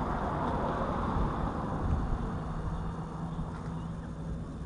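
Wind rushing over the microphone, loudest in the first couple of seconds and easing off, over a faint steady low hum.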